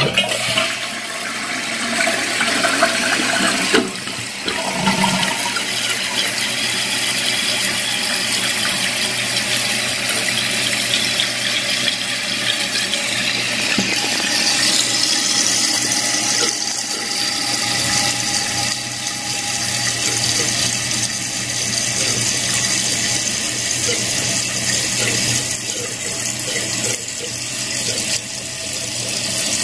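Toilet tank refilling through a newly installed float-cup fill valve: a steady rush of water pouring and splashing into the tank.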